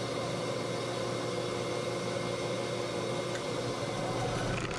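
Shop vacuum running with a steady whooshing hum, used for dust collection at a benchtop band saw.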